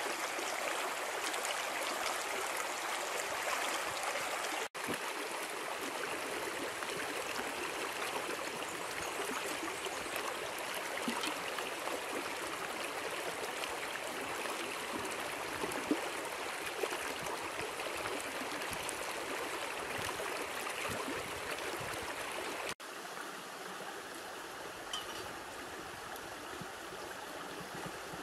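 Stream water flowing steadily, broken by two abrupt edit cuts about 5 and 23 seconds in; after the second cut the flow is a little quieter.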